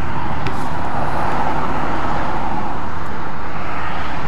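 Road traffic passing close by: a car's tyre and engine noise swells and fades, with another vehicle approaching near the end, over a steady low rumble.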